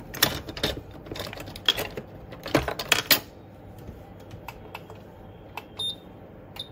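Small metal hand tools clicking and tapping on a repair bench as they are picked up and set against the metal holder. There is a cluster of quick clicks in the first three seconds, then sparse light ticks, a few with a short metallic ring.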